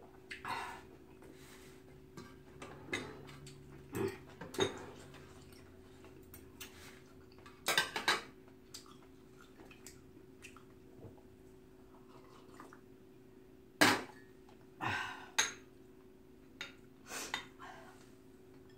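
Metal chopsticks and a spoon clinking and knocking against a stainless steel bowl and a metal tray in irregular strokes while eating, with a few louder knocks.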